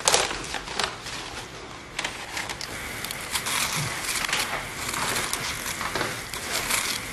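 Light knocks and crunchy rustling as crisp fried artichoke pieces are handled in a bowl. From about two seconds in, a steady crackling hiss with small clicks comes from a pot of vinegar with garlic and mint heating on the stove.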